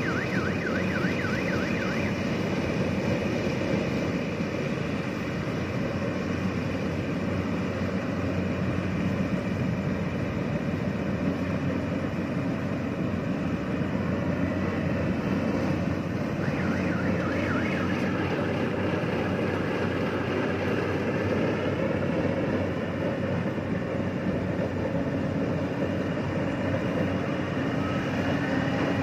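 Compact rice combine harvester's diesel engine and threshing machinery running steadily while it cuts rice. A high, wavering tone sounds briefly at the start and again for several seconds midway through.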